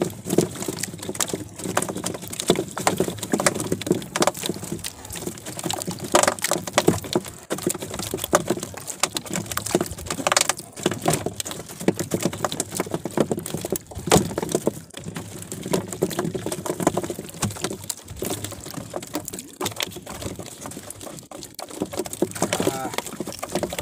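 Irregular patter, splashes and small knocks from water around a small outrigger boat as a handline is hauled in hand over hand and a hooked fish is swung aboard.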